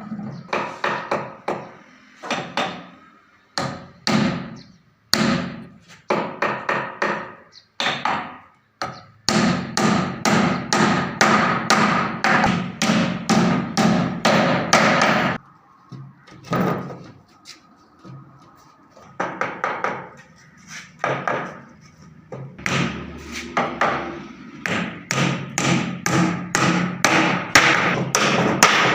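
Hammer blows on wood in quick runs of about three strikes a second, with short pauses between runs.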